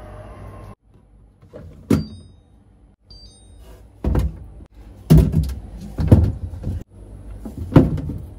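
A series of hard knocks and thuds, with rattling in between, from items being set down and moved about inside a refrigerator. There is one sharp knock about two seconds in, then a quick run of about five more toward the end.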